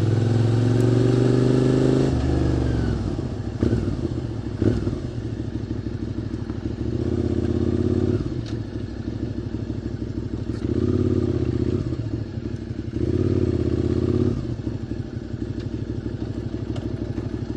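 QJ Motors SVT650X V-twin motorcycle running through a new Arrow Racetech exhaust: pulling steadily, easing off about two seconds in, then a lumpy low beat with three short throttle openings, and a couple of knocks a few seconds in.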